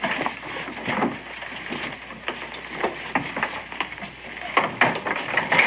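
Footsteps and wooden knocks of several children walking across a plank floor and settling onto wooden benches and desks: an irregular clatter, with a few louder knocks near the end.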